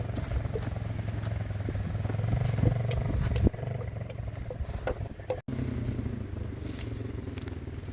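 A small off-road engine idling steadily with a low hum, with a few light clicks and a sharp knock about three and a half seconds in.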